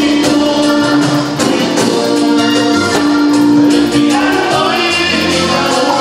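Live vallenato band playing with a man singing into a microphone, with long held notes over bass guitar and percussion.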